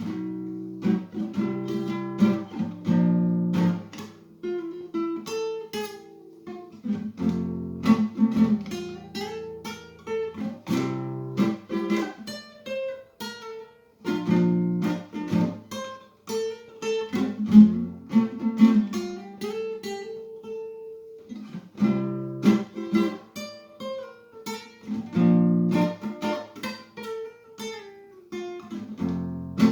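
Acoustic guitar playing solo: struck chords alternate with single picked melody notes in repeating phrases.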